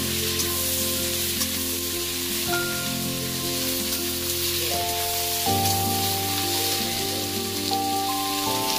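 Chopped onions sizzling in hot oil in a kadai, stirred with a spatula, under background music of long held notes.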